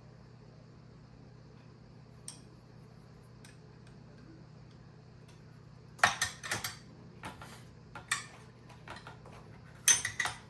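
Small metal parts and tools clinking and clattering while being handled: a burst of sharp clinks about six seconds in, a few scattered ones over the next two seconds, and another loud cluster near the end, over a steady low hum.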